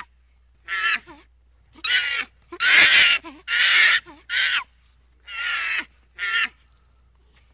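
A series of seven short, harsh animal calls at uneven intervals, each under half a second, with quiet gaps between them.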